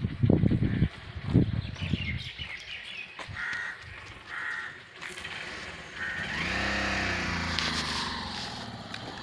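Outdoor ambience: wind rumbling on the microphone at first, then two short bird calls, then a motor vehicle passing, its engine note bending in pitch as it goes by.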